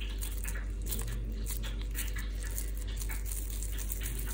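A steady low hum with faint, soft, irregular squishing as mashed potato is pressed around a cheese cube and rolled into a ball by hand.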